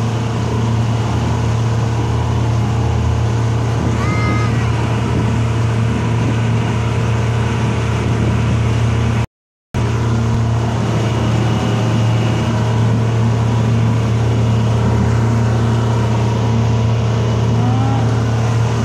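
Tour boat's motor running at a steady drone under way, with water rushing past the hull. The sound drops out for about half a second midway.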